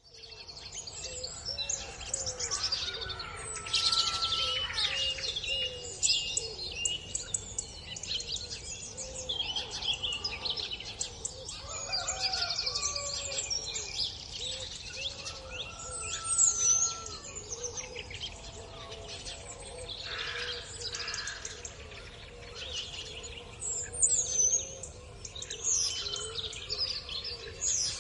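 A dawn chorus: many songbirds singing and chirping over one another, with a lower call repeating underneath, over a steady low background noise.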